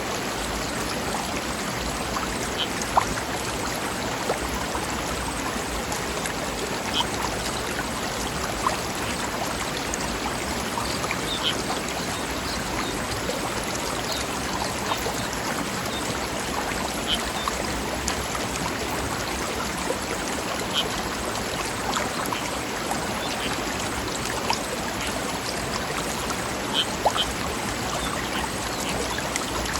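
Mountain stream running steadily over rocks, a continuous rushing and babbling, with a few brief sharper splashes standing out here and there.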